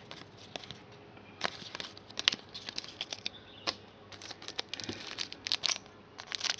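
Trading cards and a foil card pack being handled: scattered crinkles and sharp clicks that start about a second and a half in.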